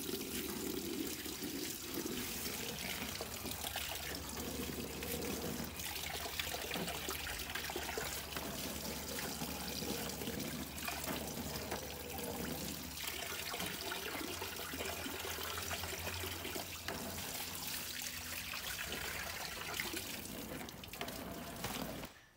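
Tap water running steadily from an outdoor wall faucet and splashing into a plastic basin as large green leaves are rinsed under the stream.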